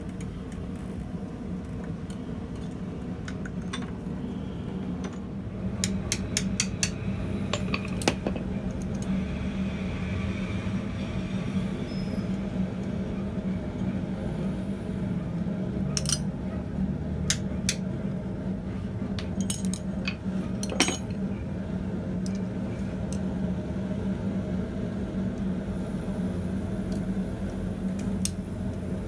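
Scattered metal clinks and light knocks as a hot steel bar is wrapped around a punch in a bench vise and the coiled piece is handled with tongs on steel, over a steady low hum.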